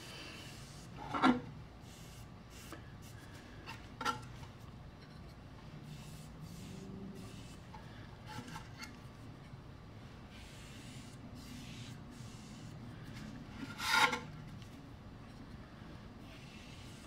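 Foam brush rubbing wood stain onto the edges of a wooden plaque, a faint steady scrubbing. A few brief louder bumps from handling the board break in, the loudest about fourteen seconds in.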